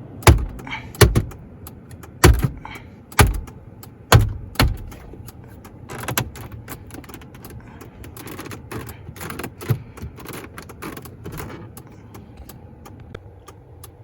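Ford Fusion's plastic dash trim around the stereo being punched and pressed back into its clips: about six sharp knocks in the first five seconds, then a few lighter taps and handling noise.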